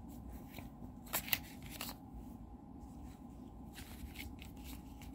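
A few light clicks and rustles of a plastic Blu-ray/DVD case and its discs being handled, the sharpest clicks a little over a second in.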